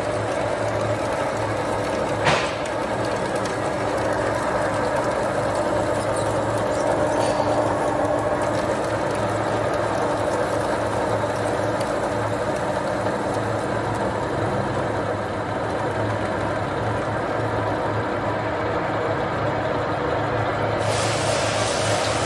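Horizontal boring mill running steadily as it mills a steel weldment, a continuous machine hum of spindle gearing and cutting. There is one sharp click about two seconds in.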